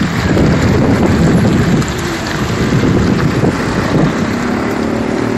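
Drinking water gushing from a pipe down a wall and splashing onto the pavement, a steady rushing noise, a little louder in the first two seconds.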